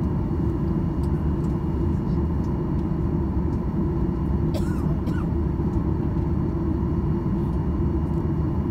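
Cabin noise of a Boeing 737-800 taxiing after landing: the steady low rumble of its CFM56 turbofan engines at taxi power, with a thin steady whine over it.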